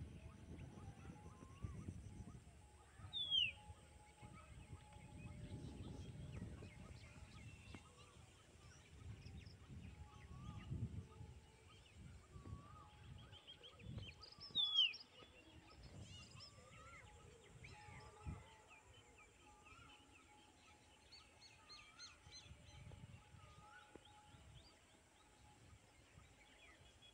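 Birds calling over open fields. Two loud, short calls sweep sharply downward, about 3 seconds and 15 seconds in, and softer chirps repeat about once a second through the middle, over a faint low rumble that comes and goes.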